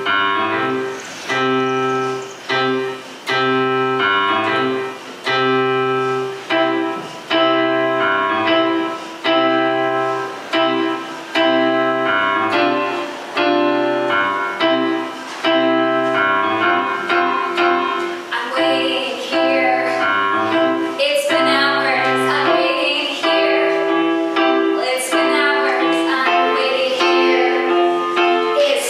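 Electric keyboard played in a piano voice: a rhythmic pattern of repeated chords over a bass line, struck about once a second, improvised accompaniment that grows busier in its upper notes about two-thirds of the way in.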